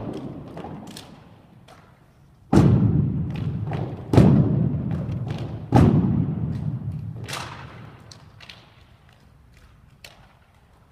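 A drill team's unison strikes on the floor: three loud echoing thuds about a second and a half apart, with lighter clicks and taps between them.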